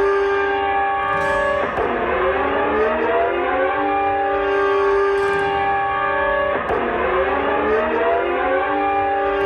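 Civil-defence siren-style warning tone from a mock emergency alert, sounding a nuclear attack warning. A steady chord of several notes drops suddenly about two seconds in and again near seven seconds, each time gliding back up to pitch.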